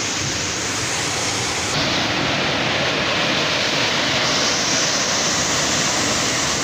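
Sea surf, a steady rushing wash of waves that swells slightly about two seconds in.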